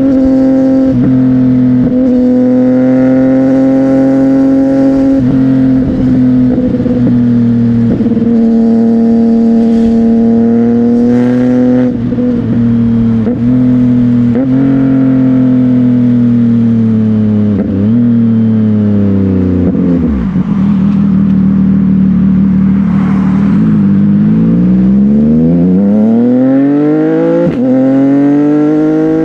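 CFMOTO 675NK inline-triple engine through a Burnout titanium aftermarket exhaust, pulling at steady revs with brief dips in throttle. About two-thirds of the way in the revs fall away as it slows, then climb again as it accelerates.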